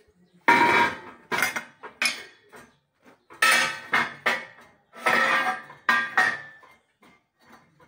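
Steel pieces of a flat-bar twisting jig (a square steel tube and a steel twisting lever) clanking and scraping against a steel work table. There is a run of metal knocks with short ringing, in several clusters, and the last ones come about six seconds in.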